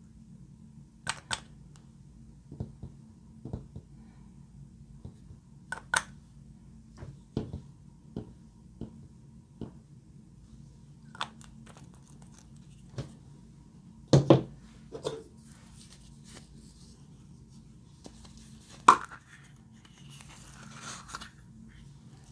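Hands working glossy slime: scattered sticky pops and crackles, about one every second or two, the loudest a double pop about two-thirds of the way in and another near the end.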